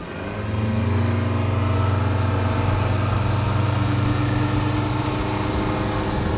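Boat engine throttled up to get underway, its sound rising over the first second and then running steadily at cruising speed.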